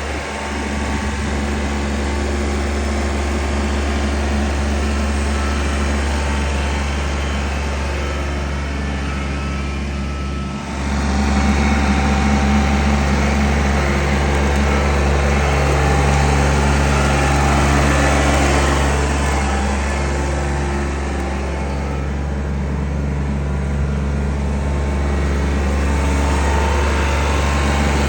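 An engine running steadily at a fairly even speed, with a brief dip about ten seconds in.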